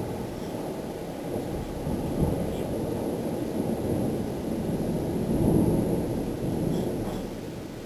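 Storm wind gusting, heard as a deep rumble buffeting the microphone that swells to its strongest about five seconds in and eases off near the end.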